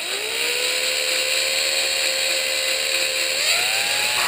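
Power drill/driver spinning a suction-cup valve-lapping tool against a new valve in an aluminium cylinder head, lapping the valve into its seat. The motor whine rises as it spins up, holds steady, then steps up to a higher pitch about three and a half seconds in.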